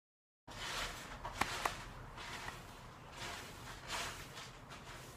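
Quiet room tone with a steady hiss that cuts in abruptly under a second in, with faint rustling and two light clicks a quarter-second apart about a second and a half in.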